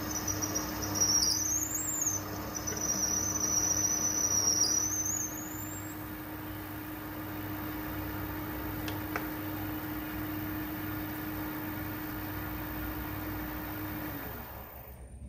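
Metal lathe running while a twist drill is fed into the centre of a spinning bronze brake-cylinder casting, the drill squealing at a high, wavering pitch for the first six seconds or so. The lathe then hums on steadily and winds down near the end.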